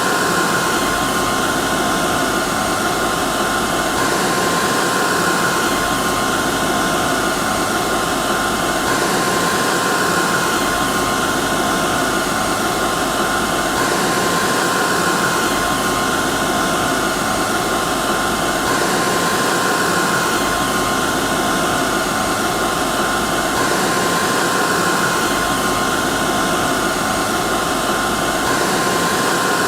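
Hair dryer running steadily: even rushing airflow with a constant motor whine on top, and a faint pattern repeating about every five seconds, as from a short recording looped.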